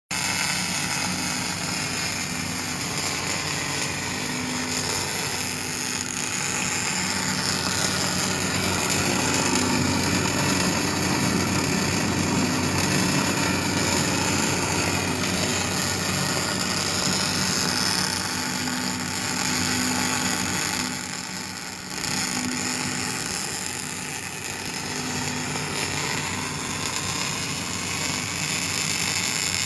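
Daihen XD II 350 gas-shielded welder being test-welded: a steady arc sizzle over a low electrical hum. The sound dips briefly about 21 seconds in, then carries on.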